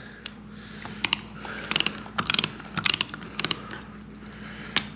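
A small hand ratchet clicking in short bursts, about six strokes, as a bolt between the pistons of a brake caliper is wound back in.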